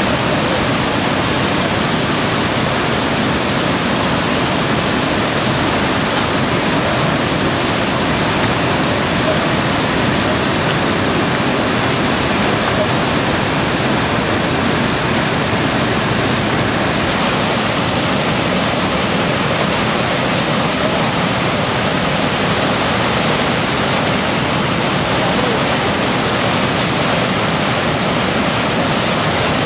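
River white water pouring over a low weir and churning through the rapids below: a loud, steady rushing roar of water.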